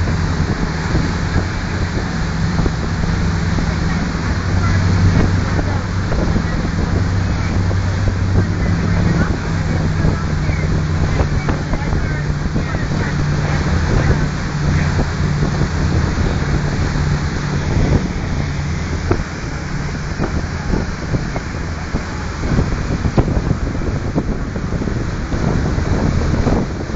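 Motorboat engine running steadily at speed, with rushing water from the wake and wind buffeting the microphone. The engine drone weakens after about twenty seconds while the water and wind noise go on.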